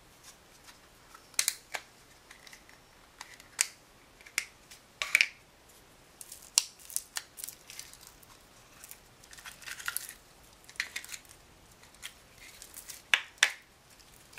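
Small hard toy cake parts clicking and snapping as they are pulled off and handled, in irregular single clicks with a few short crinkling rustles.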